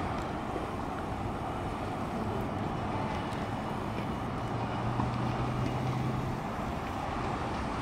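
Steady rush of city road traffic, with a low engine hum rising above it for about two seconds in the middle.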